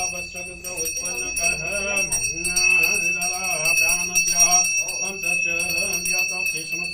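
A small hand bell rung steadily through a group of voices singing an aarati hymn to a held, wavering melody.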